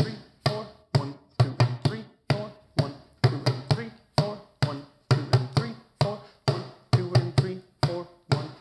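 Djembe hand drum played with bare hands in a repeating rhythm of single strikes and quick pairs and triples, about two to three hits a second, each with a short deep ring.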